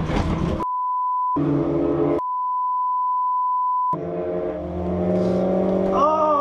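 Two censor bleeps, steady 1 kHz tones with all other sound cut out: a short one about half a second in, then a longer one of nearly two seconds. Around and after them comes in-car sound from the crashed car, with a steady hum and, near the end, a pitch that sweeps up then falls away.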